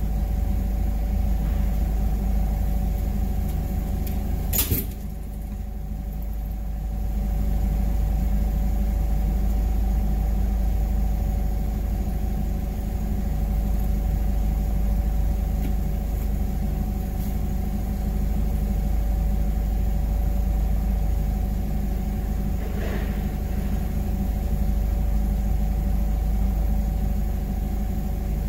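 Forklift running steadily while standing, heard from the operator's seat: a low rumble with a steady hum over it. A brief sharp sound cuts through about five seconds in, and a fainter short one comes later.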